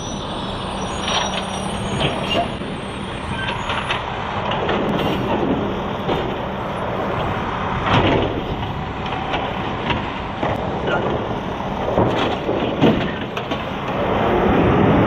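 Mack refuse truck with an automated side-loading arm: the engine runs steadily while the hydraulic arm grabs a wheeled trash cart, lifts it and tips it into the hopper. Repeated clunks and bangs sound as the cart is shaken out at the top about halfway through and set back down near the end.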